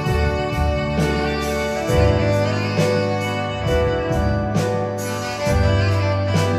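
Live band playing an instrumental passage: held keyboard and organ chords over a bass line, with drums and cymbals keeping a steady beat.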